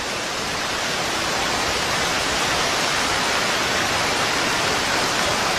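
Fast-flowing floodwater rushing through a street: a steady, even rush of water noise.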